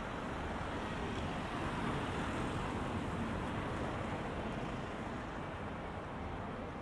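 Steady city street traffic noise at a road junction, with a red double-decker bus driving across.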